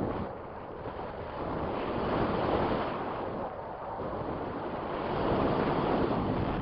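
Strong wind buffeting the camera microphone: a rushing noise with no tone in it. It swells about two seconds in and again near the end, easing in between.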